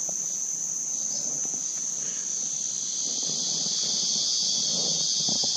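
Insect chorus buzzing steadily at a high pitch, swelling louder and fuller about three seconds in.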